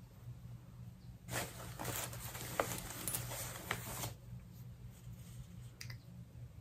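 Soft rustling and handling noises as balls of yarn are picked up and held together, mostly between about one and four seconds in, over a faint steady low hum.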